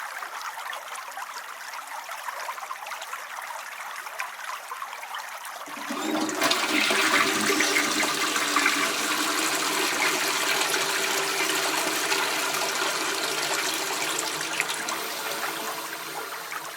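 Toilet flushing: water trickles for a few seconds, then about six seconds in a loud rush of water starts and slowly tapers off over the next nine seconds.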